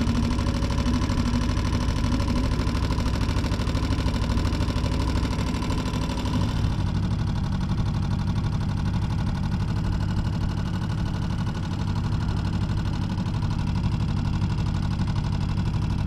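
Mercury F3.5 single-cylinder four-stroke outboard running steadily, driving an inflatable boat along under way. The motor has been running poorly after stalling, and the owner suspects a failed thermostat has made it overheat.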